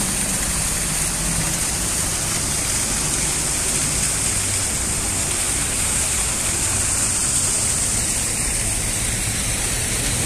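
Fountain water splashing steadily into a stone basin, an even rushing hiss, with a low hum of traffic beneath.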